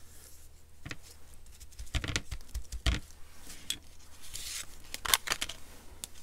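Paper pieces and craft tools handled on a cutting mat: light rustling of paper with several sharp taps and knocks, the loudest about three seconds in and about five seconds in.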